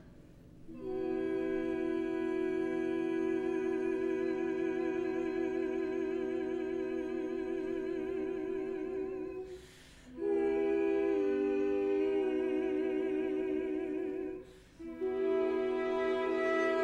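Several female opera voices singing long held chords with a wide vibrato, in three phrases separated by short breaks; the chord shifts partway through the second phrase.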